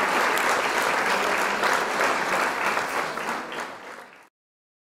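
Crowd applauding, a dense clapping that fades out from about three seconds in and cuts off to silence just after four seconds.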